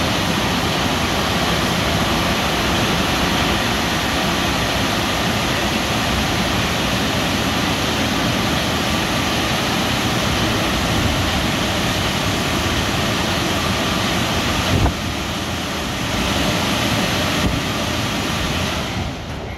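Wesumat Evolution rollover car wash's air-dryer blowers running with a steady, loud rush of air over the car. A brief knock and a small drop in level come about 15 seconds in, and the blowing falls off near the end.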